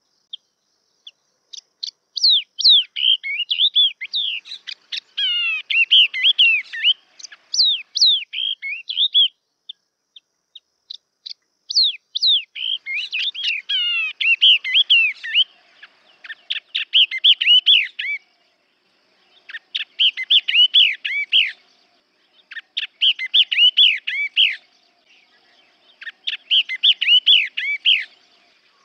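Yellow-eyed babbler singing: rapid runs of sweet, steeply falling whistled notes, first in long runs, then in phrases of about two seconds with short pauses between. The recording is a lure call for attracting the species.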